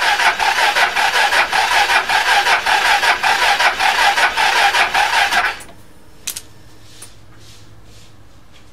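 Suzuki Skywave CK43A scooter's electric starter cranking its single-cylinder engine in a fast, even pulsing rhythm for about five and a half seconds, then stopping abruptly.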